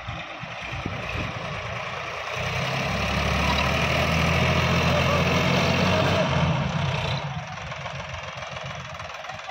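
Sonalika DI 750 RX tractor's diesel engine pulling a trailer loaded with soil: it revs up about two seconds in, runs hard for several seconds, then drops back to a low idle near the end.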